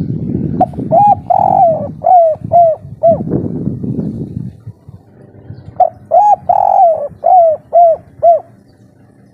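Spotted dove, a 'kuk 3' singer, cooing: two calls about three seconds apart, each of six quick notes that drop in pitch, with the third note held longest. A low rumble sits under the first call.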